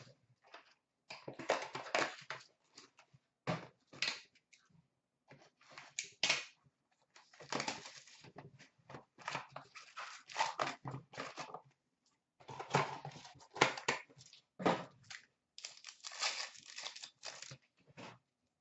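Hockey card boxes and packs being opened by hand: irregular bursts of crinkling, tearing wrapper and cardboard, with cards handled between them.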